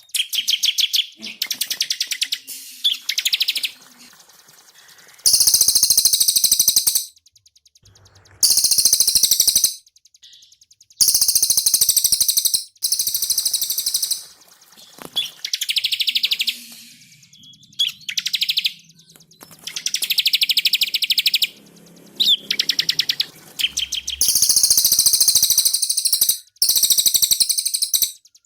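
Two caged songbirds, a cililin and a ciblek (bar-winged prinia), singing in turns: rapid, high trilled bursts of one to two seconds each, one bird's song pitched noticeably higher than the other's.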